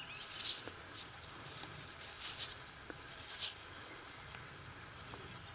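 Fingers rubbing damp soil off a small round metal watch case back held in the hand: a few short, scratchy rubs in the first three and a half seconds, then only faint background.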